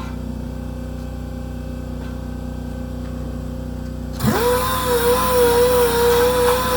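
A steady low hum, then about four seconds in a power sander spins up quickly and runs on at a steady high whine with a hiss, as sanding of the dash part resumes.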